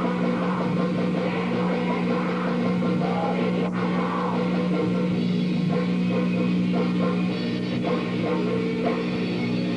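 Death metal band playing live: electric guitars and a drum kit in a dense, steady wall of sound with no breaks.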